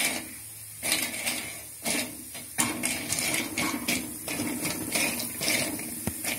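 A spoon stirring and scraping in a pan of hot ghee, with irregular knocks and clinks about every half second, as whole star anise is lightly roasted.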